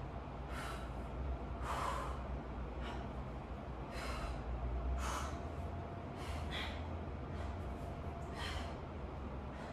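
A person breathing hard during crunches, with short forceful breaths pushed out about every one to two seconds, six in all.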